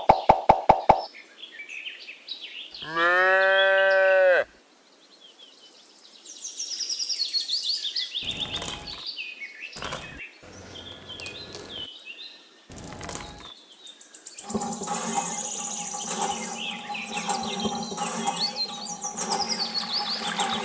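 A cow moos once, a single call of about a second and a half, a few seconds in, with birds chirping repeatedly in short high notes.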